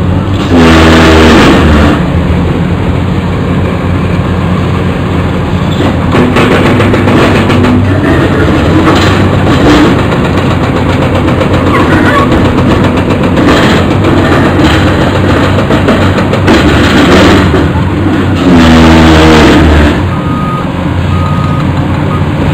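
Several Caterpillar hydraulic excavators, a 336D in front, running their diesel engines on demolition work. The engines rev up loudly twice, each time for a second or more, about half a second in and again a few seconds before the end. Scattered knocks and cracks of concrete being sheared and crushed come through the engine noise.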